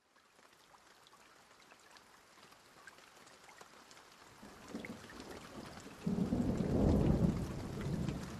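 Rain falling with scattered drop ticks, fading in, then a deep roll of thunder building about halfway through and loudest near the end.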